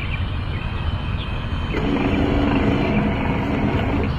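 A 1:12 scale RC long-boom excavator running as it moves its boom and arm: a steady low rumble, with a pitched hum that comes in about two seconds in and drops away shortly before the end.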